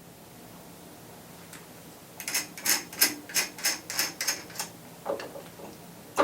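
A quick run of about nine sharp taps, roughly three a second, then a duller knock and one louder knock near the end.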